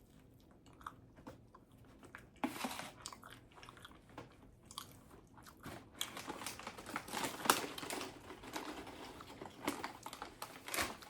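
Close-up biting and chewing of a toasted tuna melt sandwich, with crunching. It comes in two spells: a short one about two and a half seconds in, then a longer one from about six seconds to near the end.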